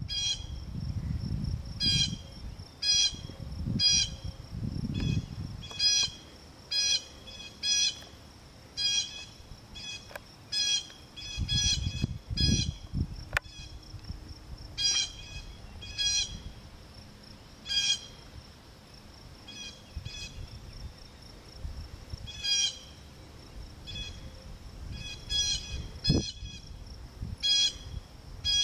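A bird calling, a short chirp repeated about once a second, with a faint steady high tone beneath. Low rumbling comes and goes, mostly in the first few seconds and again around twelve seconds in.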